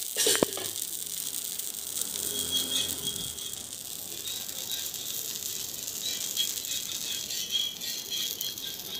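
Dosa batter sizzling on a hot tawa, a steady hiss and crackle. A metal pot lid clinks at the start.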